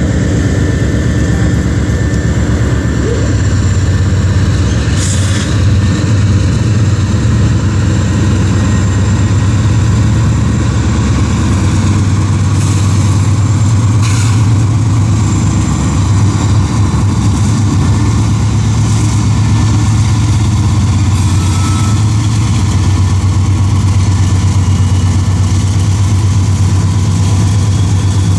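Norfolk Southern GE diesel locomotives working a freight train across a bridge, giving a loud, steady, low engine drone. A few brief clicks sound over it.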